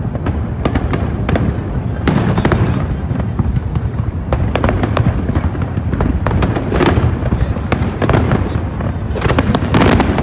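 Aerial fireworks display: a continuous rumble of shell bursts laced with many sharp cracks, thickest near the end.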